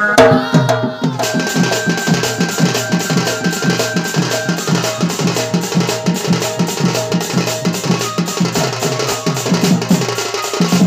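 Fast, steady drumming on a large two-headed barrel drum (dhol), beaten with a stick and hand in an even folk dance rhythm. It starts abruptly right after singing.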